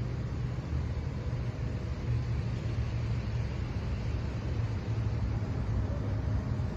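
Steady low outdoor rumble that wavers unevenly from moment to moment, with no distinct events.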